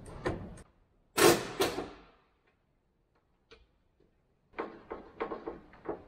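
Clicks and clunks of hand work on a van door's window mechanism and inner door panel. Two loud clatters come about a second in, then a quiet stretch, then a run of quick knocks near the end.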